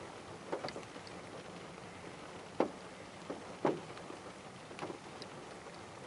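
Great spotted woodpecker pecking at peanuts through a wire-mesh feeder: about eight sharp, irregular taps, the loudest two near the middle, over a steady hiss.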